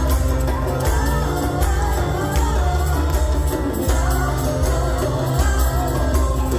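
Live band playing with a voice singing over it: electric guitars and a strong, steady bass.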